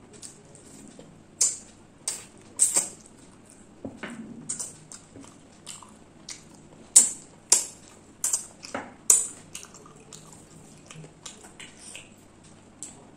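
Close-up eating sounds of chicken curry and rice eaten by hand: wet chewing and lip smacks in irregular sharp clicks, a few louder ones around the middle.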